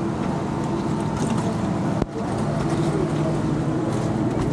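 Motor vehicle engine running steadily with road and traffic noise, with a brief drop-out about two seconds in.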